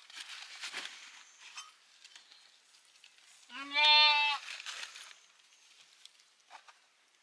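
A sheep bleats once, a single call of about a second near the middle, with faint rustling of cloth and bags around it.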